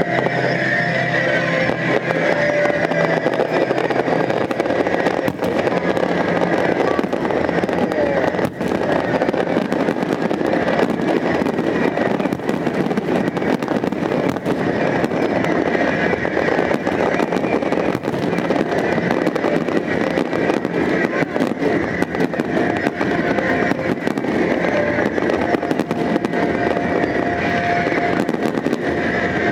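Fireworks display: dense, continuous crackling with many sharp pops and bangs.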